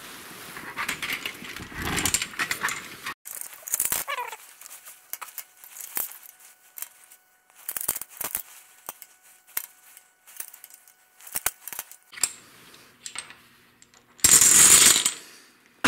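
Small hard domino tiles clicking and clacking one at a time as they are handled and set down on a table, with a short, louder clatter near the end.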